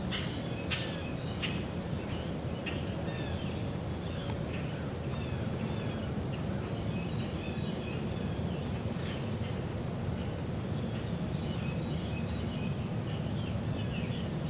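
Summer woodland ambience: scattered bird chirps over a steady high-pitched insect drone that ticks about once a second, with a low steady rumble underneath.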